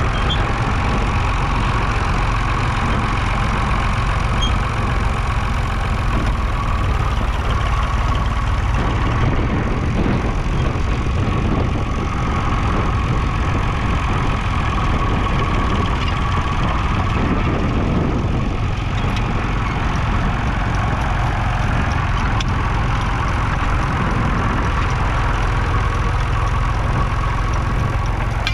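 Massey Ferguson 20 Industrial's 2.5-litre three-cylinder diesel engine running steadily.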